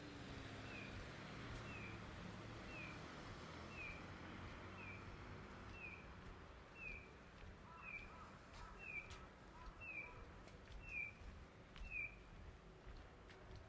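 A short, high, falling electronic chirp repeated evenly about once a second, stopping near the end, typical of an audible pedestrian crossing signal. A faint low street hum runs underneath.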